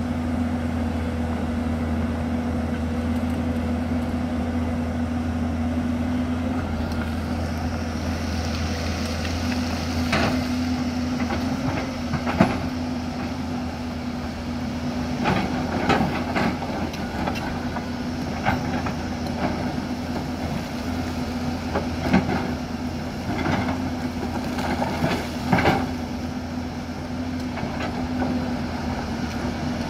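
Hyundai crawler excavator's diesel engine running steadily under load. From about ten seconds in, the bucket knocks and scrapes against rock and soil every second or two.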